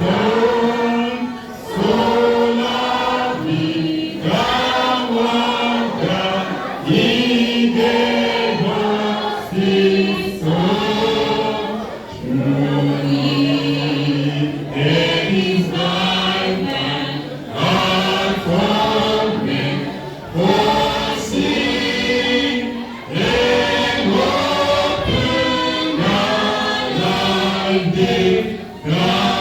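A church congregation singing a gospel chorus together, in long held phrases with short breaks between lines.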